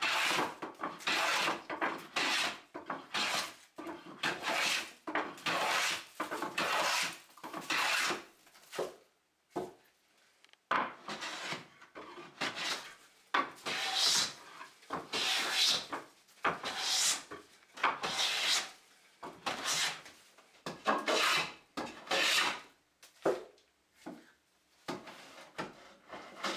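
Wooden-bodied hand planes shaving a tulip poplar board in repeated strokes, about one pass a second, each a short rasping swish of the iron cutting a curl of wood. The strokes pause briefly about ten seconds in.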